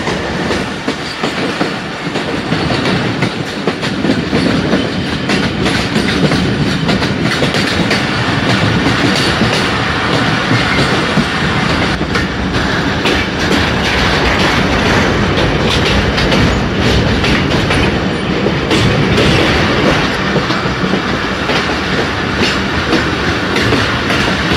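A passenger train coach running along the track, heard from inside the carriage: a steady rumble of the wheels on the rails, with many short clicks and knocks from the running gear.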